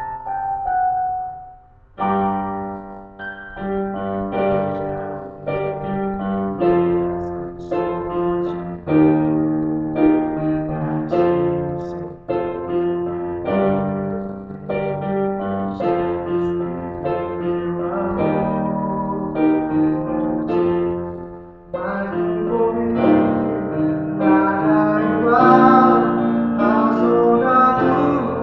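Piano-style keyboard playing the chords and melody of a slow worship song, chords struck about once or twice a second, with a brief pause about two seconds in and another dip near the end before the playing fills out.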